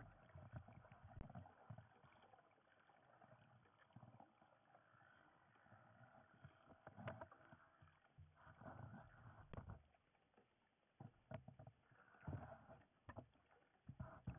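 Faint, muffled water movement and scattered soft knocks and thumps, heard through an underwater camera's waterproof housing as it swings on its line.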